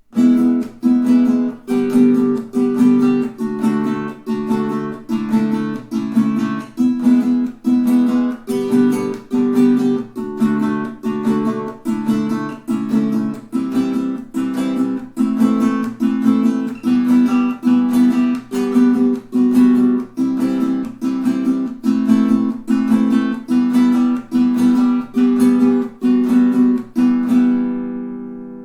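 Pono solid acacia baritone ukulele strummed in a steady rhythm, about two chord strokes a second, with a last chord left to ring and die away near the end.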